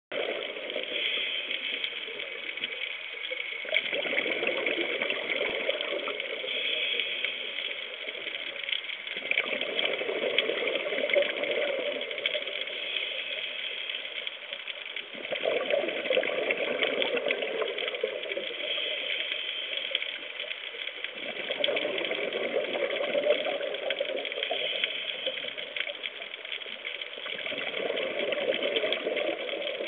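Scuba diver breathing through a regulator underwater: a hiss on each inhale, then a burst of exhaled bubbles, repeating about every six seconds.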